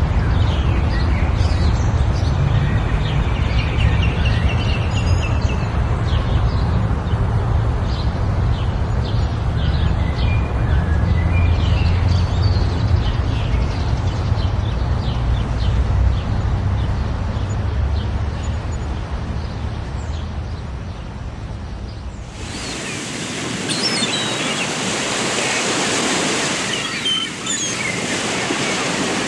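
Scattered short bird chirps over a loud, steady outdoor noise bed that is deep and rumbling at first. About three-quarters of the way through, the background switches abruptly to a brighter, hissing, surf-like noise, and the chirps carry on over it.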